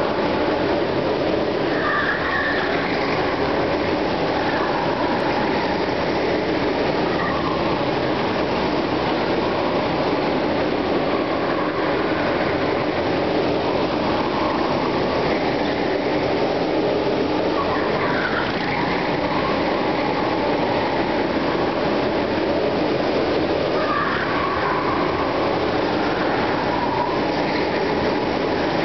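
Several go-kart engines running around an indoor track in a large hall, a steady din with engine notes rising and falling a few times as karts accelerate and pass.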